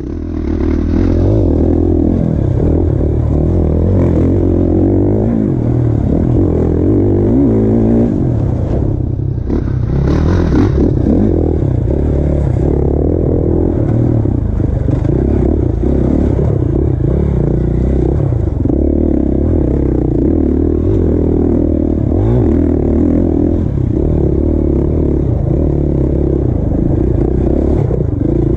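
Husqvarna FC450 single-cylinder four-stroke dirt bike engine running hard under load on a trail ride, the engine note rising and falling as the throttle is worked.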